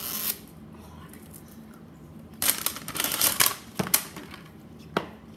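Plastic toy-capsule packaging being handled close to the microphone: after a quiet stretch, about a second of crinkling plastic starts halfway through, followed by a few sharp single clicks.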